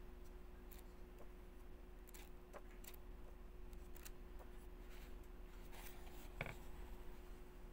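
Faint paper ticks and rustles as the pages of a paperback book are turned by hand, over a low steady hum. One sharper tap comes about six and a half seconds in.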